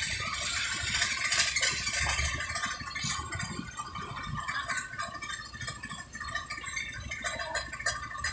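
Concrete mixer truck's diesel engine running with a steady low rumble, with irregular clatter and scraping on top.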